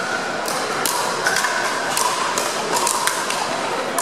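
Pickleball paddles striking a hard plastic ball in a doubles rally: a run of sharp pops, roughly two a second, in a large gym.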